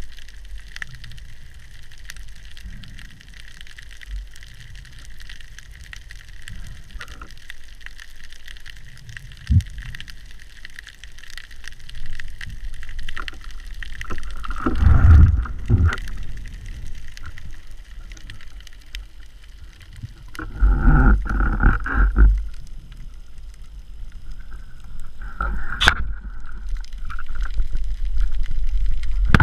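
Underwater ambience heard from below the surface: a steady water hiss and low rumble, with two louder gurgling water surges around the middle and a sharp click near the end.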